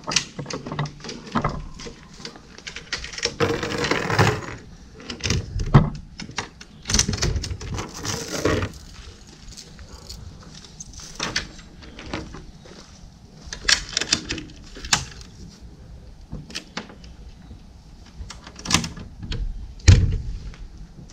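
Steel link chain of a fold-down table rattling and clinking as it is handled and hooked, in irregular bursts of sharp clinks, with a heavy low thump near the end.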